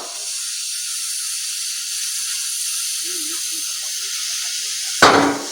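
Stick welding arc burning steadily: an even, high crackling hiss from the electrode, with a brief loud sound about five seconds in.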